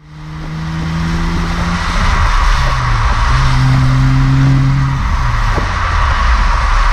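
BMW 135i's twin-turbo N54 inline-six running through a Milltek rear silencer, heard close to the exhaust tips while driving, its note fairly steady with a few steps in pitch. Heavy wind and road rush sits over the exhaust.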